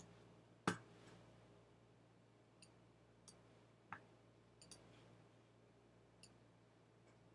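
A few computer mouse clicks over a faint steady hum. The sharpest click comes about a second in and another near four seconds, with light ticks between.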